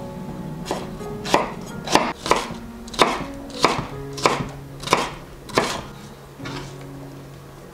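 Chef's knife chopping a red bell pepper on a wooden cutting board: about nine sharp strikes at an even pace, stopping about six seconds in.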